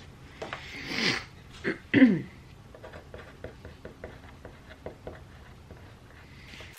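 A ballpoint pen writing on notebook paper, a run of faint small scratches and taps. Just before the writing starts, about two seconds in, a short breathy vocal sound drops in pitch.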